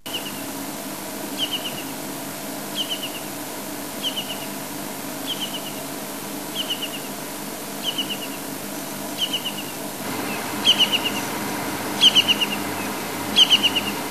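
Brown-hooded kingfisher calling: a short run of three or four quick, falling, piercing notes, repeated about every second and a half and growing louder near the end. A steady low hum runs underneath.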